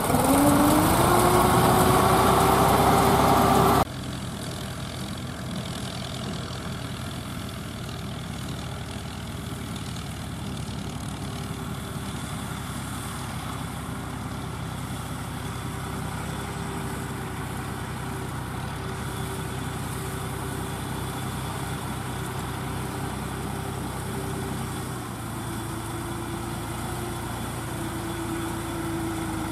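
Deutz D5006 tractor's diesel engine running under load while pulling a straw baler, its pitch rising as it revs up over the first few seconds. About four seconds in, the sound cuts suddenly to a quieter, steady tractor engine drone.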